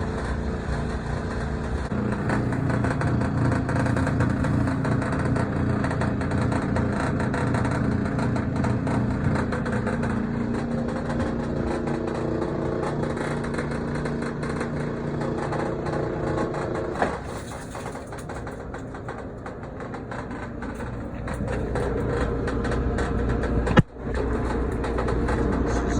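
Whirlpool clothes dryer running: its motor turning the drum with a steady mechanical hum, with a click about two-thirds of the way through and a sharp knock near the end. The owner hears a noise in it that he thinks may mean the drum needs balancing.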